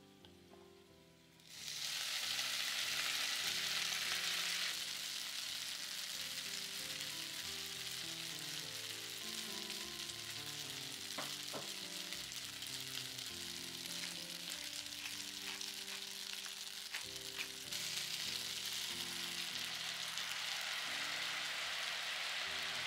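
Cooked spaghetti dropped into hot olive oil with garlic and dried chillies, setting off loud sizzling about a second and a half in. The frying goes on steadily, with a few light clicks around the middle, and grows louder again near the end.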